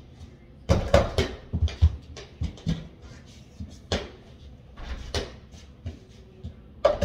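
A mini basketball hitting an over-the-door hoop and the door, then bouncing on a hardwood floor: a quick cluster of knocks and thumps about a second in, then scattered single thumps and footsteps.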